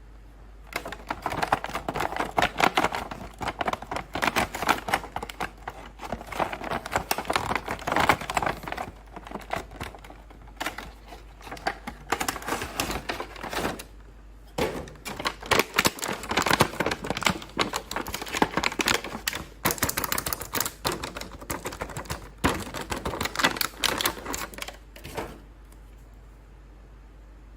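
Toy packaging being handled and opened: rapid crinkling, crackling and clicking in several long stretches with brief pauses, stopping a couple of seconds before the end.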